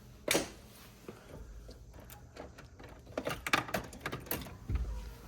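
Light clicks and knocks of tools and parts being handled while working on a car: one louder knock about a third of a second in, then a quick run of clatters between about three and four and a half seconds.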